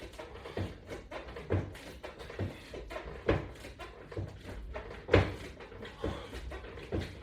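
Knocks from resistance-band exercise equipment being worked through repetitions, about one a second, each with a short ring.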